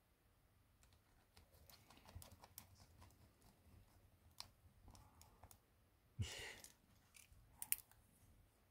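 Faint, scattered light clicks and taps of small tools and parts being handled on a smartphone under repair, with a short louder rustle about six seconds in and a sharp click soon after.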